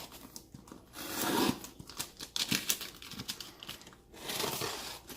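Packaging being handled and opened: crinkling and tearing in two swells, about a second in and again near the end, with small clicks and knocks between them.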